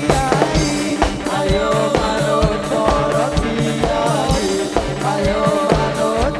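Live band music: a drum kit keeps a steady beat under a melody that slides between notes.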